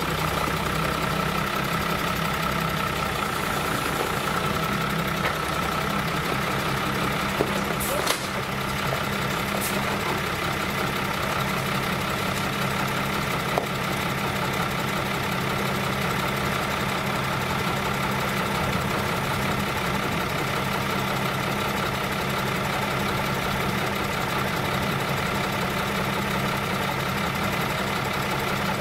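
Farm tractor's diesel engine idling steadily, with a sharp knock about eight seconds in.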